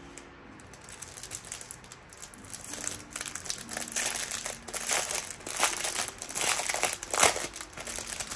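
Thin clear plastic packaging crinkling and rustling as it is handled and pulled apart. The crackles are sparse at first and grow louder and busier in the second half.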